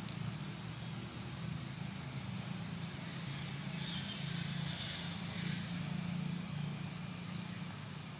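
Steady low mechanical hum under a constant hiss.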